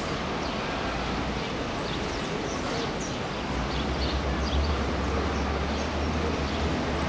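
Steady rushing noise of heavy surf with wind buffeting the microphone; the low wind rumble grows stronger about halfway through. Faint short high-pitched chirps are scattered over it.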